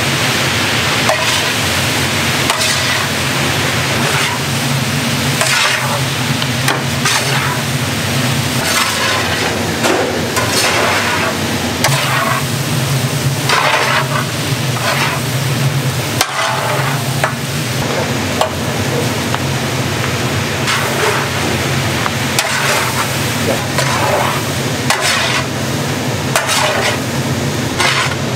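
Food frying in a large pan and stirred with a spatula in repeated scraping strokes, over a steady sizzle and a constant low hum.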